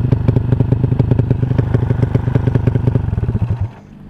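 Honda Supra motorcycle with a 200cc four-stroke single and a CJDW aftermarket exhaust idling with a rapid, even exhaust beat, then shut off about three and a half seconds in.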